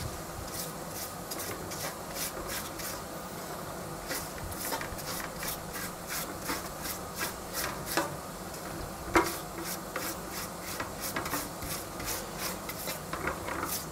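Silicone pastry brush swishing melted margarine over sheets of phyllo dough in a round metal baking tray, a quick rubbing stroke repeated about twice a second.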